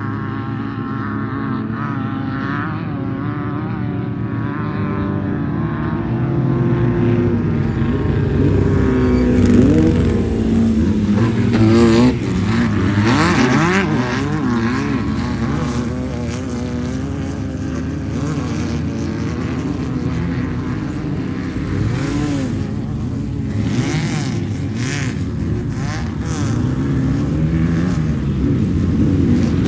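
Off-road race vehicle engines revving hard. Their pitch swoops up and down as they accelerate and pass, and the sound is busiest and loudest around the middle.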